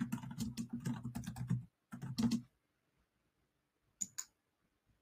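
Computer keyboard typing: a quick run of keystrokes for almost two seconds and a short burst more, then two sharp mouse clicks about four seconds in.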